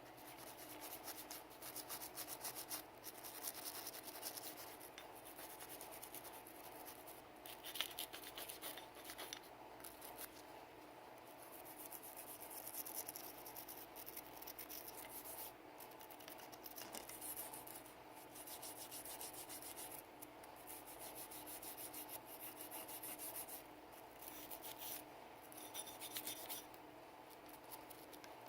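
Scrubbing and rubbing on the parts of a Sig Sauer P320 pistol during cleaning: bouts of quick, close strokes broken by brief pauses.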